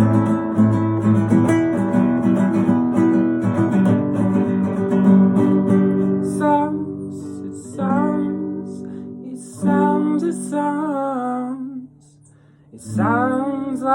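Acoustic guitar strummed, with a voice singing long wordless notes over it from about halfway; the sound drops away briefly near the end before a last sung note.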